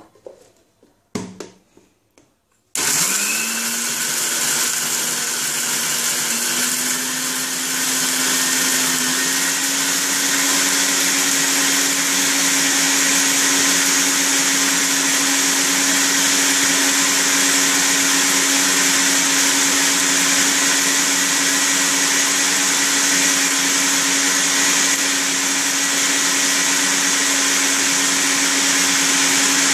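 Maharaja Whiteline mixer grinder starting up about three seconds in and running steadily, grinding dried tomato slices into powder in its steel jar. Its hum rises quickly at start-up and steps up slightly in pitch a few seconds later. There is a brief knock about a second in.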